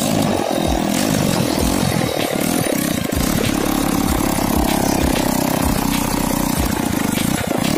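Engine of a homemade mini quad ATV running steadily as it is ridden around, with irregular low thumps underneath.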